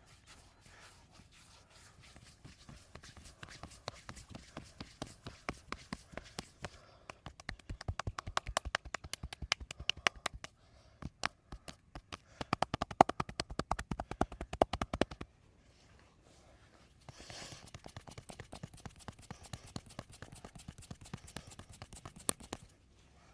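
Hands rapidly tapping and slapping on the body in a percussive massage, a quick run of many sharp pats that grows louder, then stops briefly and gives way to softer rubbing.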